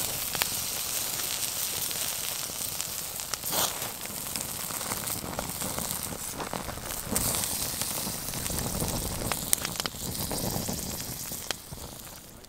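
Bacon sizzling on a wire grill grate over an open campfire, with the fire crackling in sharp ticks. The sizzle fades away near the end.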